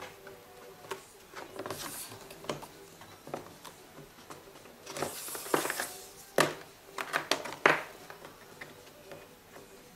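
Handling noises of a flexible cloth tape measure being laid along model railroad track: light rustling and scattered small taps and clicks as fingers press the tape against the rails, with a longer rustle about halfway through and a few sharper taps near the end.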